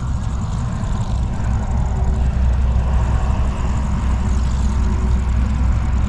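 Wind buffeting the microphone: a steady, fluttering low rumble with no clear engine pitch.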